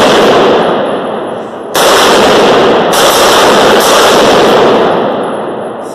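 An 8-inch AR-15 pistol fires two shots about a second apart inside a range booth, each blast trailing a long echo. It is being test-fired to check that it cycles without jamming now that a heavier H2 buffer is fitted.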